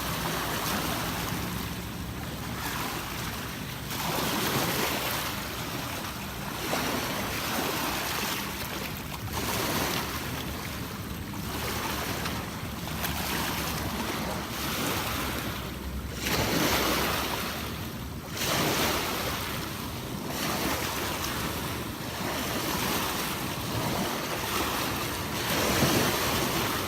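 Wind-driven lake waves washing against a rocky shore in surges every couple of seconds, with wind buffeting the microphone.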